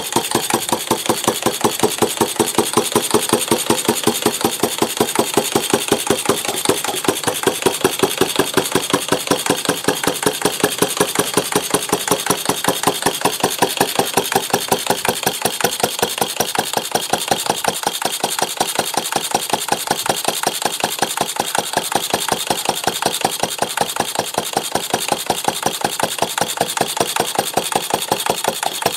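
Stover/Duro AC 1/2 HP antique single-cylinder stationary engine running steadily. Its exhaust beat is loud and evenly spaced, firing without any missed beats.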